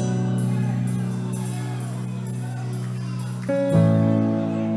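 Background worship music on a keyboard: held chords, with a change to a new chord about three and a half seconds in.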